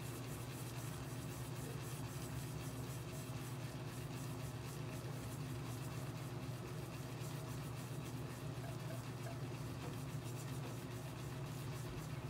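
Shaving brush being swirled and loaded on a very soft shaving croap, a light scratchy bristle sound over a steady low hum.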